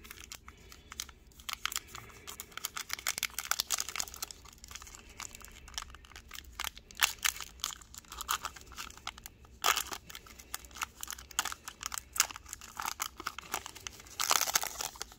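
Foil wrapper of a Panini NBA Hoops Premium Stock trading-card pack crinkling and being torn open by hand, in irregular crackles, with a longer, louder burst of tearing near the end.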